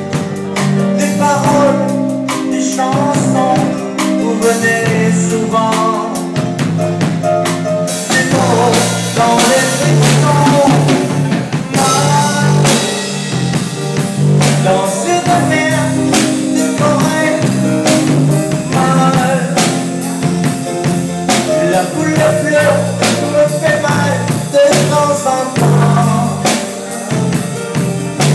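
Live rock band playing: an electric guitar over a steady drum-kit beat, with singing.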